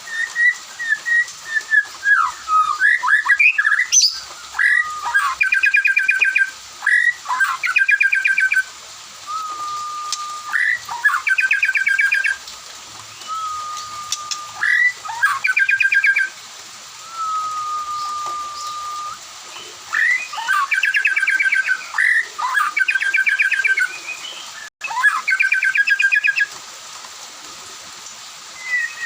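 White-rumped shama singing a loud, varied song: phrases of rapid trilled notes alternate with long, level whistled notes, with short pauses between phrases.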